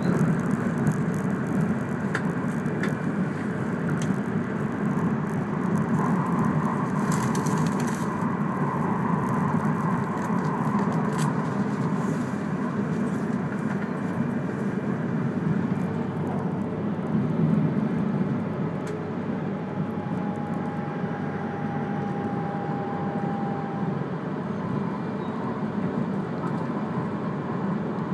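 Running noise of an E3-series Komachi Shinkansen train heard inside the passenger car: a steady low noise of wheels on rails. A faint steady whine joins in for a few seconds about two-thirds of the way through.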